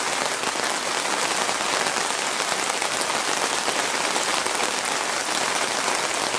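Heavy thunderstorm rain pouring steadily, a dense, even hiss of falling drops.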